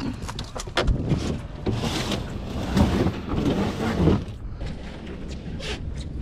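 Knocks and clatter from a plastic Igloo cooler being opened and handled on a boat deck, with several short sharp knocks in the first second, then a couple of seconds of dense rustling that dies down.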